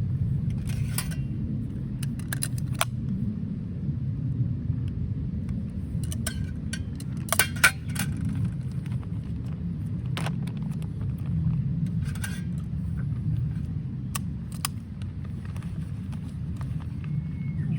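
A steady low rumble with scattered sharp clicks and light metallic clinks of cookware and utensils being handled.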